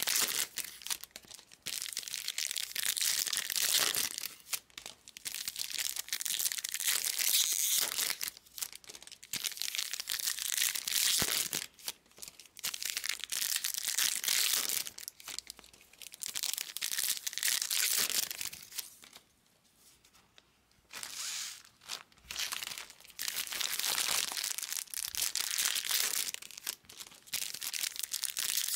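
2022 Bowman Chrome baseball card pack wrappers being torn open and crinkled by hand, in a run of bursts with a short quiet gap about two-thirds of the way through.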